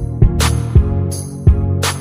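Background music with a beat: a bass line under kick-drum thumps and sharp snare or cymbal hits.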